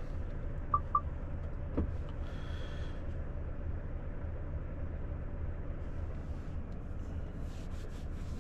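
Volvo FH460 truck's 13-litre six-cylinder diesel idling steadily, heard from inside the cab, left running to cool the turbo after the drive. Two short electronic beeps sound about a second in, with a few light clicks later.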